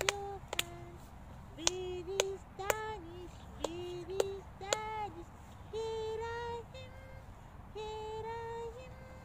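Hand claps in a two-person clapping game, with a woman singing a simple rhyme along. Sharp single claps fall between short sung notes over the first five seconds, then the singing goes on in two longer held notes with few claps.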